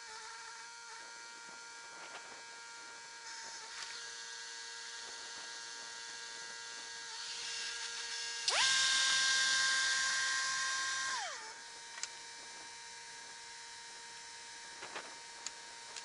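Wood-Mizer LT70 portable band sawmill, its saw head travelling along the track. For about three seconds in the middle it gives a loud whine that climbs in pitch as it starts and drops away as it stops, over the mill's steady hum. A few light clicks and knocks follow.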